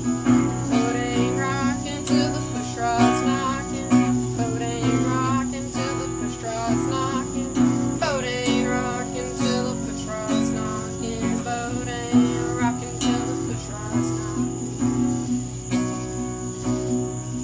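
Acoustic guitar strummed in a steady rhythm while a voice sings a song, the singing clearest in the first half.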